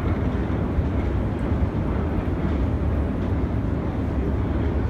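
Long deep-level metro escalator running: a steady low rumble of its moving steps and drive machinery.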